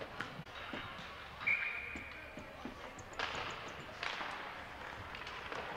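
Ice hockey game sounds: scattered clacks of sticks and puck and hissing scrapes of skates on the ice. A brief steady high tone sounds about a second and a half in.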